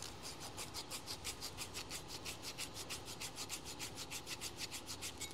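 Sandpaper rubbed back and forth over the ground-down end of a heat exchanger's metal pipe in quick, even strokes, about seven a second. It is taking the sharp edges off the cut end so it won't chew up the inside of the rubber hose.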